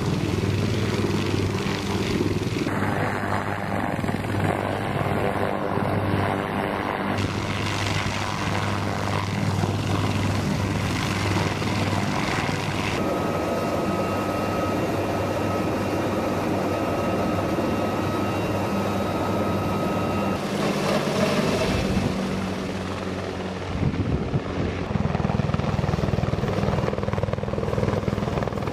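UH-1Y Venom helicopter running on the ground and lifting off, its twin turbine engines and four-blade main rotor making a steady heavy thrum with a thin turbine whine above it. The sound shifts abruptly several times where the shots change.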